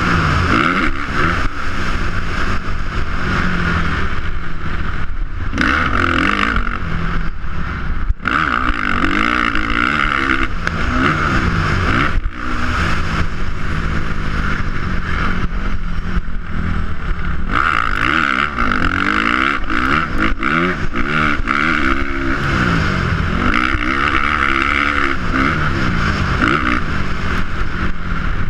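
Motocross dirt bike engine revving up and down over and over as the rider works the throttle and gears, with a steady rush of wind noise over it.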